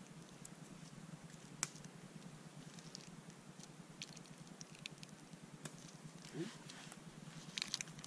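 Faint scattered clicks and crackles over a low steady hum, with one sharper click about one and a half seconds in.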